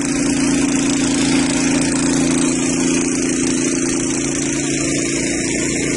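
An engine running steadily at an even speed, a constant hum with no revving.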